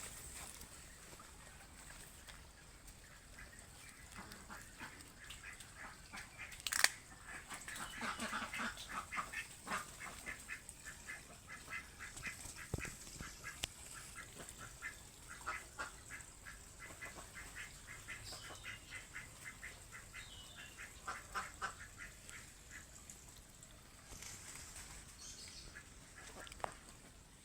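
Domestic fowl calling: runs of short, rapid calls, several a second, through the middle of the stretch. A single sharp click comes just before the calls begin.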